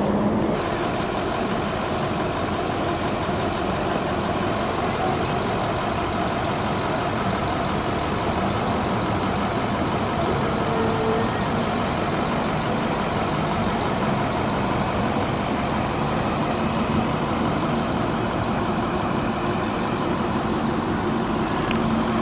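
A vehicle engine running steadily, a large motor such as a bus or truck, heard as a constant drone without a break.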